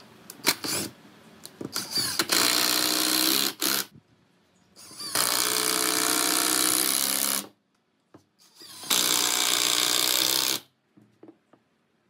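Hitachi cordless impact driver driving screws into a wooden chair frame: three runs, each a second or two long, with small clicks of handling before the first.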